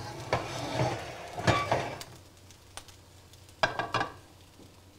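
Ground turkey sizzling in a nonstick skillet as the pan is shifted on the stovetop, with several sharp metal clanks of cookware in the first two seconds. The sizzle then dies down, and two more clanks of pots come a little before the end.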